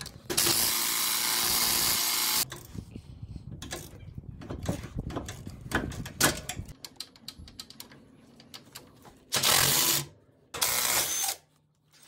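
Cordless impact wrench running in a burst of about two seconds, then again in two short bursts near the end, loosening the bolts that hold the steering gear to the frame rail. Between the bursts, a ratchet clicks and metal tools clink.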